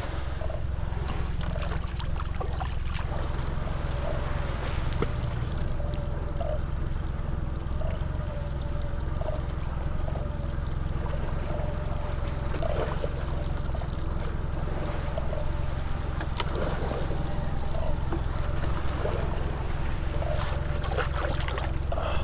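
Steady low rumble of wind on the microphone and water slapping against a small boat's hull at sea, with scattered light knocks.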